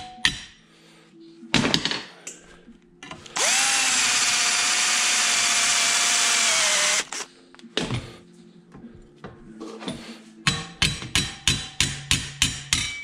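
Cordless drill boring through a spot weld in a steel radiator hold-down clamp, a steady whine lasting about three and a half seconds. Near the end comes a fast run of light hammer blows on the steel clamp in the vise, about four or five a second.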